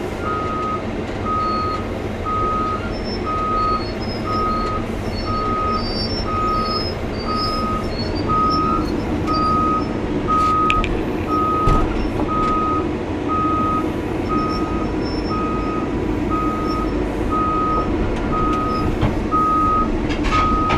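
Cat 320 excavator's travel alarm beeping steadily, a single-tone beep a little more than once a second, over the machine's diesel engine running, as the excavator tracks.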